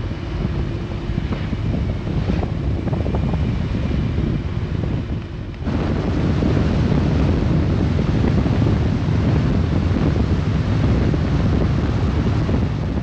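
Wind rushing over the microphone on a 2020 Harley-Davidson Road Glide Limited at highway speed, with the low rumble of the motorcycle and road beneath it. About six seconds in it abruptly gets louder and fuller.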